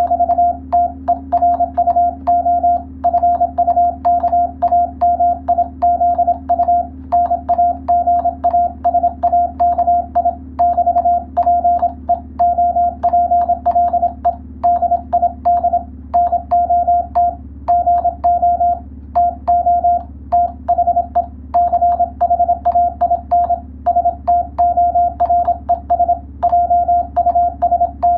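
Morse code (CW) tone: a single steady mid-pitched note keyed on and off in rapid dots and dashes, with a sharp click at each keying, over a faint low hum.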